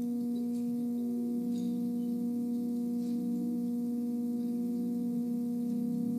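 Electric church organ holding a steady sustained chord, with softer lower notes shifting slowly underneath it.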